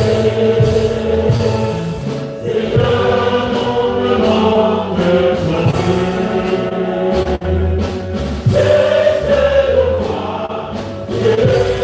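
A church choir singing a hymn, with a low bass line beneath the voices.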